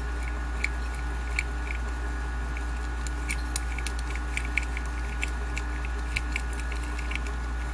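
Faint, irregular clicks and ticks of fingers and fingernails handling a small plastic toy figurine, over a steady low hum.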